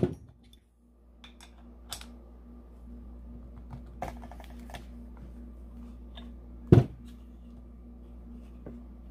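Scattered small clicks and taps of a Sherwood Maximus scuba regulator second stage being handled and turned over by hand, with one loud low thump about seven seconds in, over a steady low hum.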